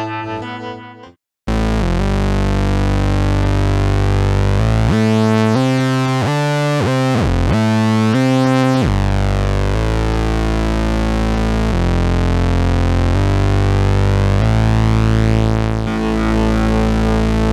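Software synthesizer played from a MIDI keyboard: a few decaying piano-like notes cut off about a second in, then thick sustained synth chords that change every few seconds, with a swoop in pitch around the middle.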